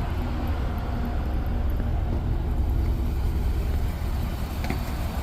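Pickup truck engine idling steadily, a low rumble.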